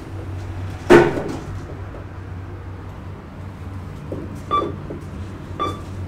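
KONE MonoSpace elevator car: the doors shut with one loud thud about a second in, then two short button presses, each with a brief beep, near the end, over a steady low hum.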